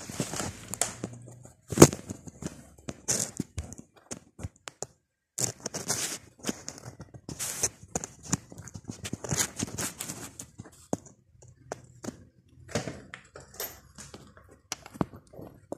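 Handling noise of hands and a tool working a piston into an engine's cylinder bore: scattered taps, clicks and knocks, the loudest a sharp knock about two seconds in, mixed with short bursts of rustling.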